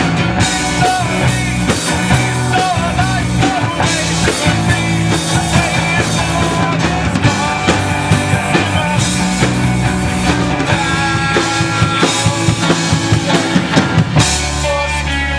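A live rock band playing, with the drum kit prominent. Quick drum hits come close together shortly before the end, then the band moves into a held low note.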